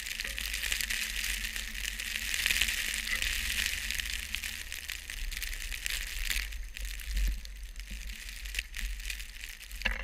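Blizzard wind with blowing snow hissing and pattering against a GoPro camera's housing, over a low rumble of wind on the microphone. The hiss is strongest a few seconds in and eases in the second half.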